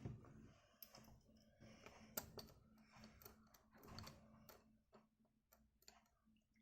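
Faint, scattered clicks and light handling noise of a small screwdriver working the tiny screws out of a Samsung Galaxy A90 5G, over a faint steady hum.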